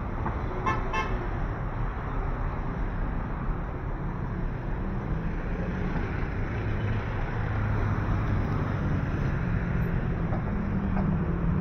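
Road traffic running steadily with a low engine rumble, and a car horn tooting twice in quick succession about a second in.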